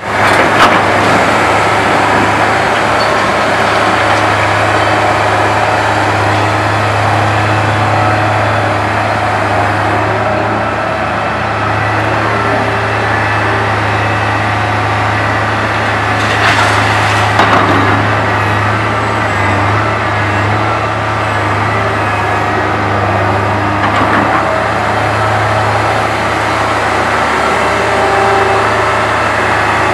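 Liebherr R962HD crawler excavator's diesel engine running steadily with a heavy low hum while it works. A few times the bucket clatters against the concrete demolition rubble and the steel barge, loudest about seventeen seconds in.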